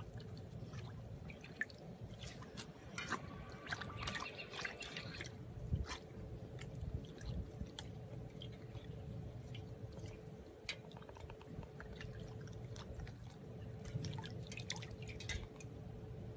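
Siberian husky blowing bubbles into water with its muzzle: irregular wet bubbling, dripping and splashing, denser in a few spells, with a faint steady hum behind.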